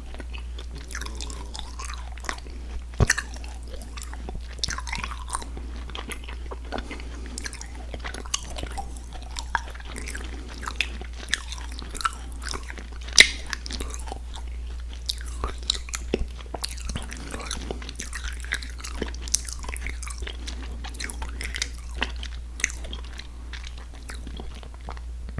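Close-miked chewing of soft, chewy sweets, with wet mouth smacks and sticky clicks throughout. Two sharper ones stand out, at about 3 seconds and about 13 seconds.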